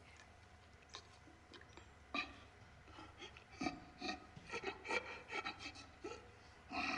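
Faint rubbing and scraping with scattered light knocks and clicks, busiest in the second half, over a low steady hum.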